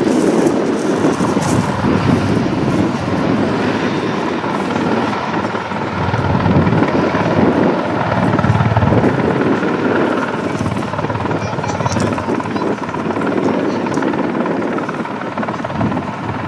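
AH-64 Apache attack helicopter flying low, its main rotor and twin turboshaft engines making a loud, continuous rotor noise that swells slightly about halfway through as it manoeuvres.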